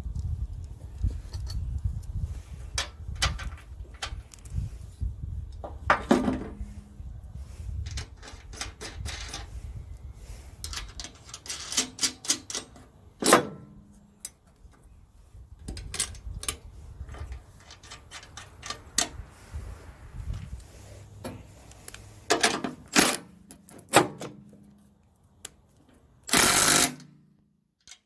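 Metal clanks, knocks and clicks of bolts and heavy steel skid shoes being fitted to a snow blower housing, with stretches of low rattling.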